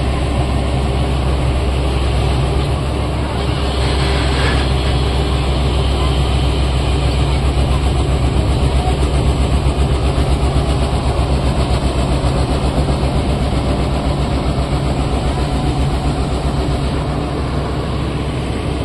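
Crawler excavator's diesel engine running with a steady low drone that takes on a fast, regular throb through the middle.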